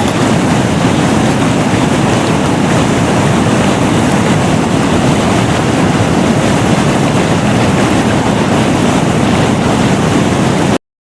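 Loud, steady rush of tornado wind, like a freight train, cutting off suddenly near the end.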